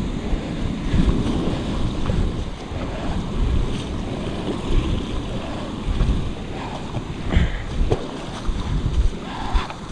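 Wind buffeting the camera microphone in gusts over the wash of small waves running up the sand and swirling around rocks.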